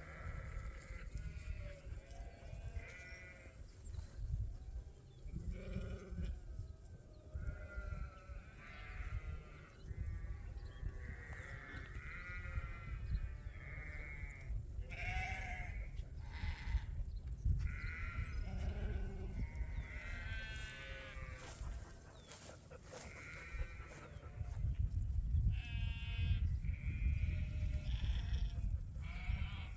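Ewe lambs bleating, many overlapping calls one after another, over a low rumble.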